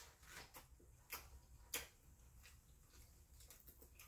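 Near silence broken by faint, scattered clicks and smacks of eating: chewing and peeling shell-on boiled shrimp by hand, with a few quick clicks near the end.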